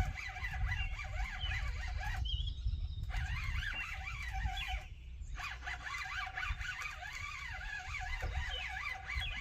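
Many high, quickly wavering animal calls overlapping one another over a steady low rumble, cutting out briefly twice.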